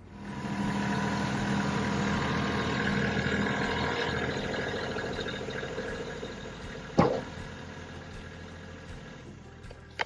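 Kubota LX compact tractor's diesel engine running steadily, slowly fading over the second half. A single sharp knock about seven seconds in.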